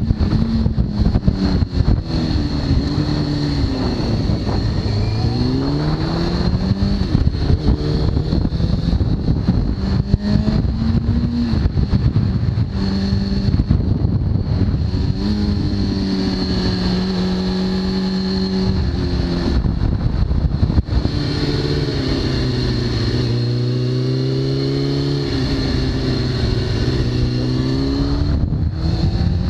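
2003 Kawasaki ZX-6R's inline-four engine through a full Hindle titanium exhaust, heard from the rider's seat as the bike is ridden: the engine note climbs, holds steady and drops several times as the rider accelerates, shifts and eases off. Wind rushes over the microphone throughout.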